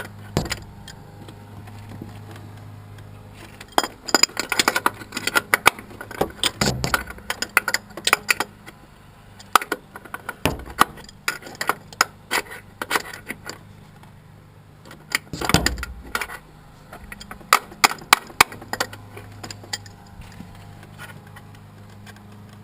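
Irregular metallic clinks, taps and rattles of hand tools and metal parts, coming in clusters, as a stubborn part is worked into place on an engine.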